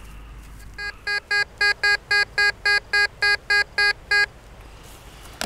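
Tesoro De Leon metal detector beeping over a buried target: a quick run of about a dozen identical electronic beeps, about four a second, starting about a second in and lasting some three seconds. The signal reads about 50 on the conductivity scale, which the detectorist takes for a typical pull-tab signal, though it could also be gold.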